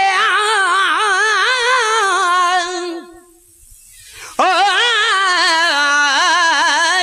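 Sindhi naat singing: a single voice holding long, wavering notes with heavy vibrato, breaking off about three seconds in and coming back after a pause of about a second and a half.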